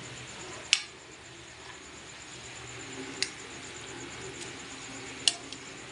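Vegetable lumpia shallow-frying in oil over low heat: a steady sizzle of the oil, with three sharp clicks or pops spread through it.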